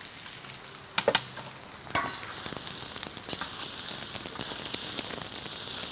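Chopped onion sizzling in hot olive oil in a cast-iron kazan while a metal slotted spoon stirs it. After a couple of short knocks, the sizzle starts about two seconds in and then holds steady.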